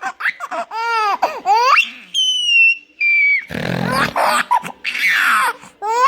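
Baby laughing hard in repeated bursts, with high thin squeals, between the silly noises a man makes to set it off. A short breathy, noisy burst comes about three and a half seconds in.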